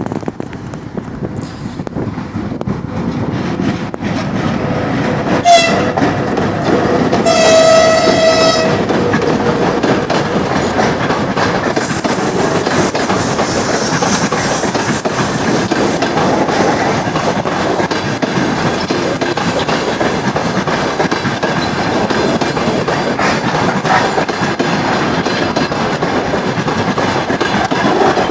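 VL80T electric locomotive hauling a passenger train past, sounding its horn: a short toot, then a longer blast of about a second, a greeting from the crew. Under and after the horn runs a steady rumble, with the carriage wheels clattering over the rail joints.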